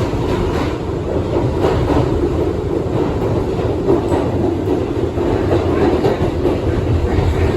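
R62A subway car running along the track, heard from inside the car with its air conditioning off: a steady loud rumble of wheels on rail, with a faint clack over the rail joints every second or two.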